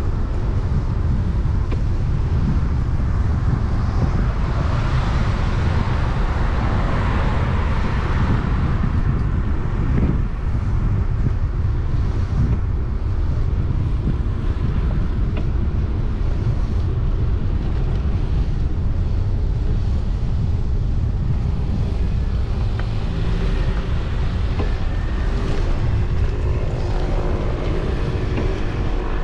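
Wind buffeting the microphone of a camera riding along on a bicycle, as a steady low rumble. A motor vehicle passes, swelling and fading about a quarter of the way in, and there is a single knock about ten seconds in. An engine hum comes in near the end.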